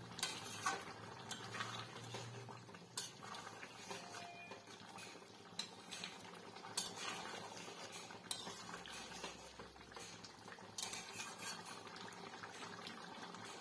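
Echor chingri (jackfruit-and-prawn curry) bubbling as it simmers down in a metal kadai, with a spatula scraping and clinking against the pan every second or so as it is stirred.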